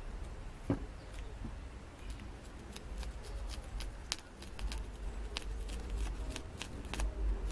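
Screwdriver tip being pressed and worked into a styrofoam wing, giving a run of small crisp clicks and crackles. There is a single thump just under a second in.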